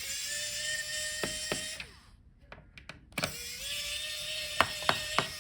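Small electric screwdriver backing out laptop bottom-case screws: two runs of motor whir, each rising slightly in pitch as it spins up and then holding steady, with sharp clicks in between.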